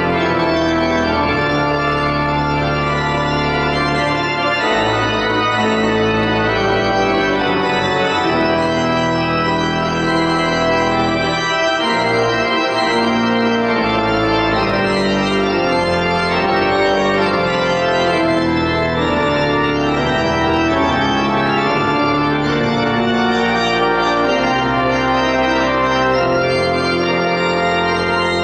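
Church organ playing slow sustained chords over a low bass line, the harmony changing every second or two.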